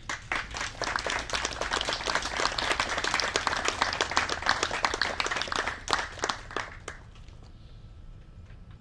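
A small audience applauding. The claps thin out and stop about seven seconds in.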